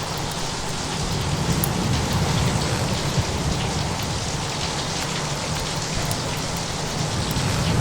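Steady heavy rain with a low rumble underneath, as of distant thunder and surf, in a storm ambience.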